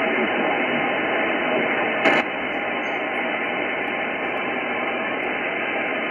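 Steady hiss from an Icom IC-9700 transceiver's receiver, listening in upper sideband on the RS-44 satellite's 70 cm downlink, with no voice coming through. There is a brief loud crackle about two seconds in.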